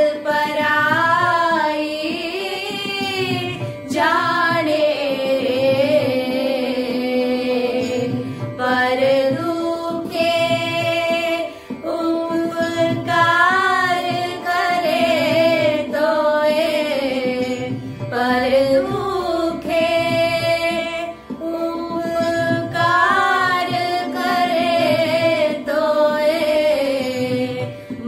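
Two women singing a slow Indian devotional song together, long gliding phrases with short breaks between them, over a soft, steady beat.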